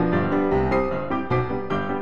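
Background piano music, a quick run of notes struck several times a second.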